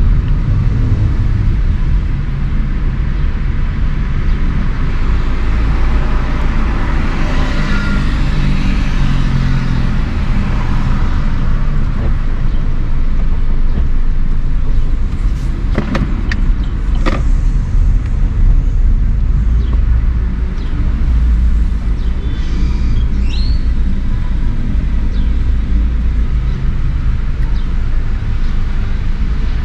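Car driving on a city street: a steady low rumble of engine and road noise, with two sharp knocks a second apart around the middle.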